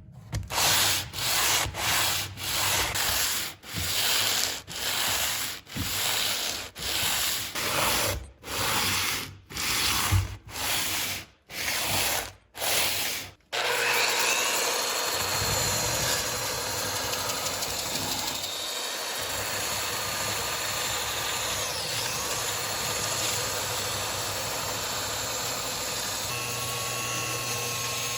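Hand sanding by hand in quick back-and-forth strokes, a bit more than one a second, during a rusty saw's restoration. About halfway through, the strokes stop and a small power tool starts running steadily with a thin whine.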